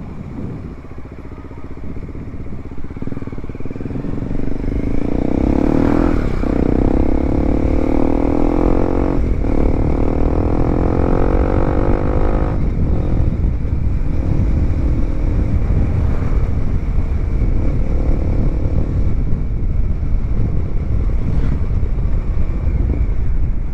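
Bajaj Dominar 400's single-cylinder engine running through a Yoshimura exhaust pipe with the silencer removed, on the move. It gets louder about four seconds in, and its note climbs and breaks off three times between about six and thirteen seconds in as it pulls through the gears. A steady low rumble runs underneath, and the exhaust is loud but not as loud as expected.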